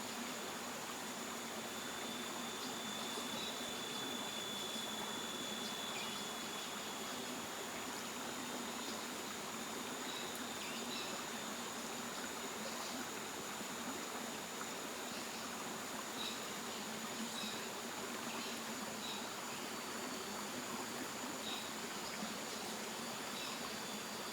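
Steady rush of water at a waterfall, with a continuous high insect drone over it and scattered faint short chirps.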